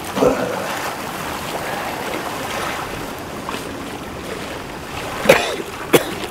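Water lapping and washing in a steady hiss, with two short sharp sounds near the end.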